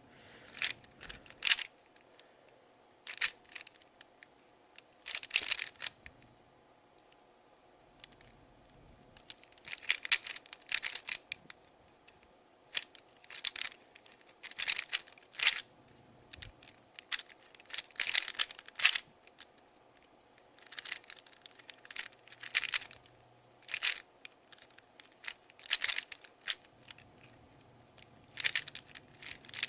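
Cyclone Boys FeiJue M magnetic 3x3 speedcube being turned quickly during a solve: rapid clusters of sharp plastic clicks from the layers turning, in bursts a second or two long with short pauses between.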